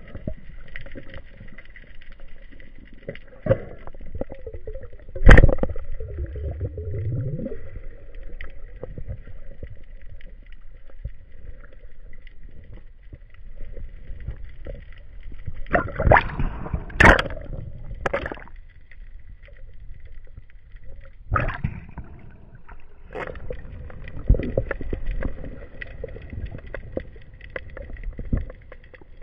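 Underwater sound: gurgling, moving water with sharp knocks and clicks. The loudest knock comes about five seconds in, and a cluster of them around the middle.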